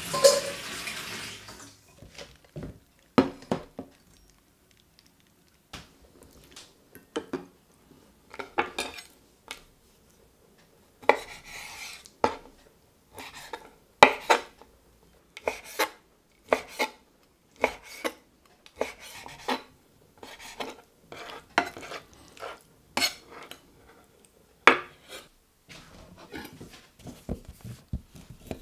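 Water boiling in a pot, fading out over the first two seconds. Then a kitchen knife cutting raw chicken breast on a wooden chopping board: the blade knocks sharply on the wood in irregular strokes, more often from about the middle on. Near the end the knife starts into a chorizo sausage.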